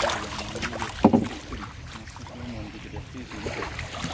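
Shallow floodwater sloshing and lapping, with one louder splash about a second in.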